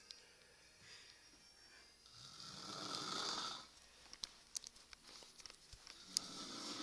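Elderly woman snoring: one long, raspy snore about two seconds in, lasting about a second and a half. After it come a few faint clicks and one sharper click, and the next snore begins near the end.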